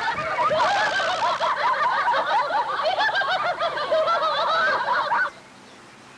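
Many people laughing together in a dense, sustained burst that cuts off abruptly a little after five seconds in.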